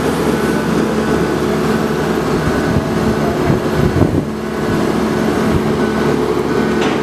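Engine of a Marine Travelift mobile boat hoist running steadily while it carries a boat in its slings: a loud, even drone with a steady hum.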